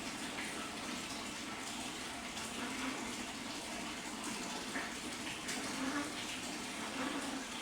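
Steady rushing of running water, an even continuous hiss.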